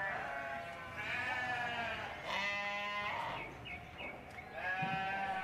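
A flock of sheep bleating: three long bleats one after another, the middle one the loudest.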